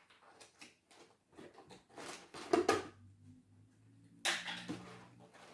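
Toy packaging being handled and opened by hand: scattered light clicks and taps of cardboard and foil, with louder rustling about two seconds in and again about four seconds in.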